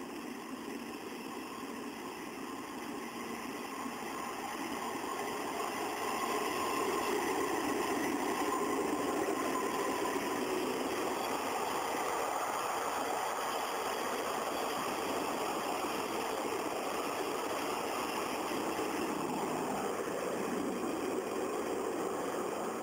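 JNR EF65 electric locomotive moving slowly under power as it hauls a rake of cars. It makes a steady running noise that grows louder over the first several seconds and then holds, with a faint whine coming and going in the middle.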